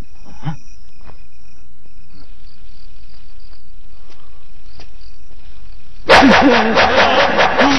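A steady low hum with faint, evenly spaced cricket chirping. About six seconds in, a man lets out a loud, drawn-out cry.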